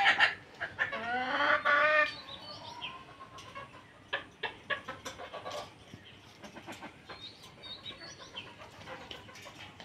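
Chickens clucking, with loud drawn-out calls in the first two seconds, then softer, scattered clucks.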